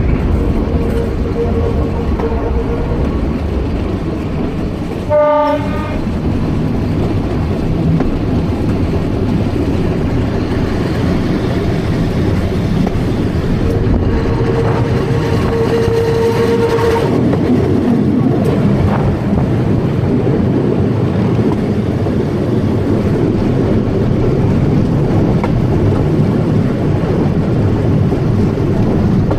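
Metre-gauge electric local train running along the line, a steady rumble of wheels and running gear. About five seconds in, a short horn blast sounds.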